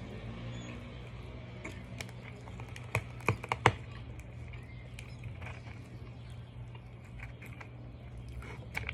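Fingers picking apart fried fish in a plastic takeout container: scattered sharp clicks and taps of the plastic, four loud ones close together about three seconds in, over a steady low hum.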